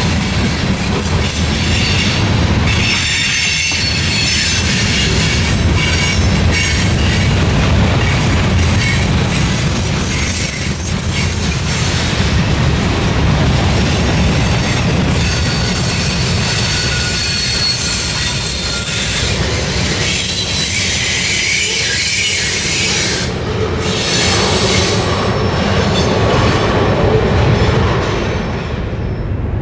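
A long freight train's cars rolling past: a steady rumble of steel wheels on the rails, with high-pitched wheel squeal that comes and goes.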